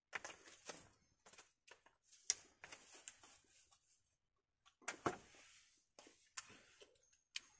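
Faint, irregular clicks and short scrapes of someone eating a meal, with a sharper click about two seconds in and a cluster of louder ones around five seconds.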